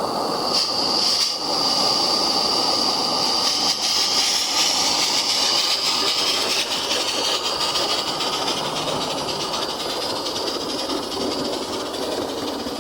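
SM32 garden-railway goods train running along the track: a steady hiss with rolling wheel noise underneath. The high hiss slowly drops in pitch and fades toward the end.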